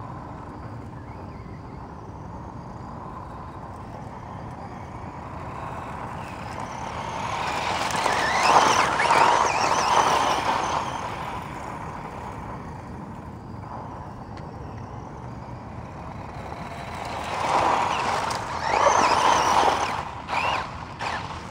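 Tamiya Holiday Buggy electric RC car driving on sand and gravel, its motor and tyres swelling loud as it passes close twice, once around eight to eleven seconds in and again around seventeen to twenty seconds in. A few short knocks follow near the end as it comes to a stop.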